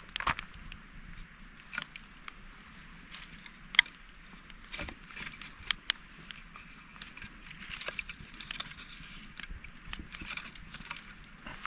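Small campfire of kindling and dryer lint crackling, with irregular sharp snaps and pops.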